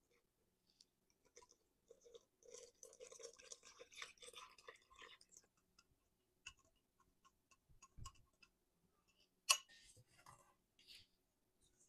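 Faint pouring of a liquid batter mixture from a glass measuring cup onto flour in a stainless steel mixing bowl: a few seconds of soft splashing trickle, then scattered light clicks and one sharp knock near the end.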